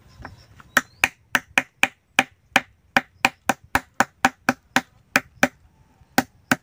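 Rapid sharp knocks, about three to four a second with a short pause near the end, as a hard shellfish shell is struck to crack it open.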